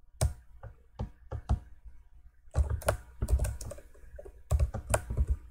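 Computer keyboard keystrokes: a few separate key presses, then quicker runs of typing from about two and a half seconds in.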